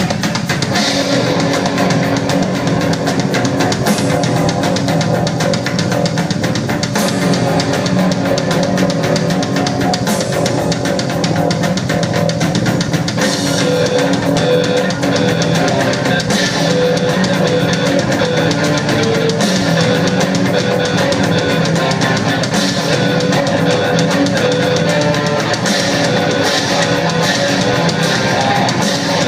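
Rock band playing an instrumental intro live: electric guitar over a drum kit, with a cymbal crash every three seconds or so.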